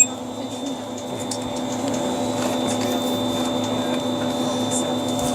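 Steady mechanical hum of chairlift station machinery, with several held tones, slowly getting louder.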